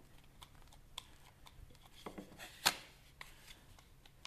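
A metal scraper smearing and folding soft porcelain clay on a worktop: faint scraping with small clicks, and one louder scrape a little past halfway. The clay is being worked to an even consistency, free of air bubbles.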